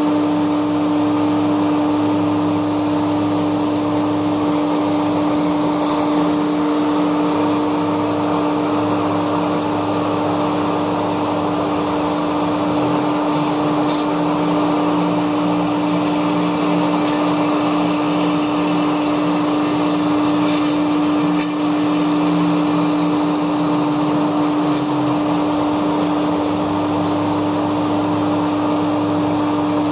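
Laguna SmartShop II CNC router running a foam cut: the spindle gives a loud, steady whine at one pitch, over a lower hum that changes pitch every few seconds as the machine moves.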